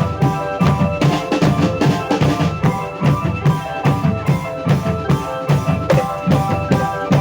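Music with a fast, steady drum beat under sustained melodic tones from pitched instruments.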